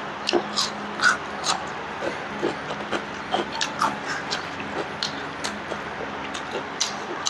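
Eating sounds: irregular wet clicks and smacks of chewing, about twenty in a few seconds.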